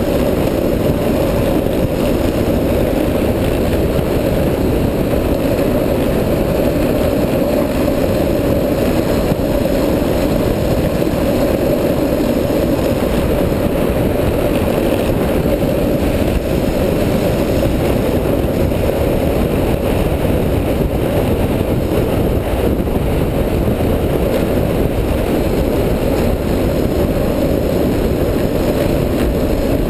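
Street luge's wheels rolling fast down an asphalt road, a steady, dull road rumble mixed with the rush of wind at speed.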